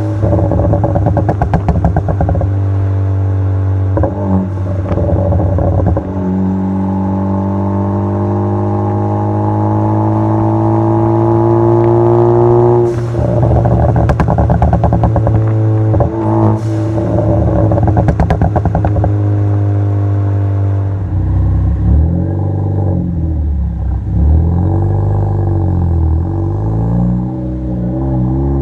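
Ford Focus ST's turbocharged four-cylinder engine accelerating through the gears, its pitch climbing in one long pull, then lifting off with bursts of crackles and pops from the exhaust on the overrun. The crackling comes from a crackle-and-pop tune through a Cobb exhaust with a catless downpipe. Toward the end the engine runs at lower revs with a wavering pitch.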